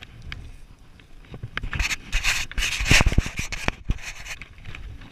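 Close rubbing and scraping right on the microphone, like a jacket brushing a body-worn camera, with a cluster of sharp knocks about three seconds in.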